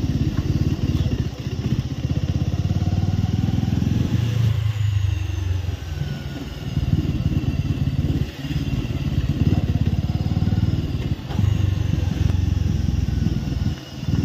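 Bajaj Avenger 220 Street's single-cylinder engine running at low road speed, heard from the saddle. The engine note dips briefly a few times as the throttle eases off, most noticeably about four and a half seconds in.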